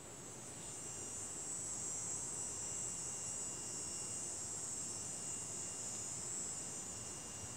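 Insects droning in a steady high-pitched buzz that swells in about a second in and then holds, with a faint thin steady whine beneath it.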